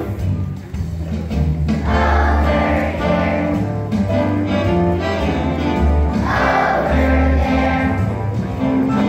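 Children's choir song with instrumental accompaniment: steady held bass notes under the melody, with the sound swelling about two seconds in and again around six seconds.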